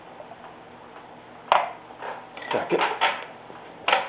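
Small knocks and clatters of painting gear handled on a tabletop as a plastic acrylic paint bottle and a brush are put down: one sharp tap about a second and a half in, a short cluster of knocks and scrapes in the middle, and another knock near the end.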